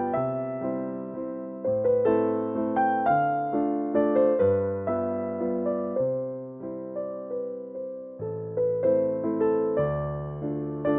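Background piano music: a melody of struck notes that fade, over held low notes.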